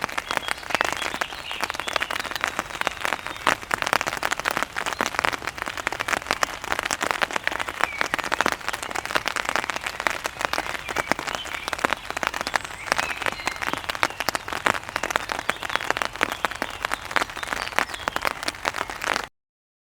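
Rain pattering on an umbrella: a dense, steady patter of drops striking the canopy, which stops abruptly near the end.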